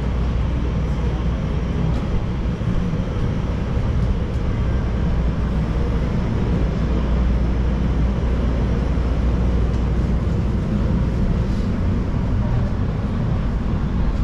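CTA 'L' rapid-transit train, a steady low rumble with an even hiss over it.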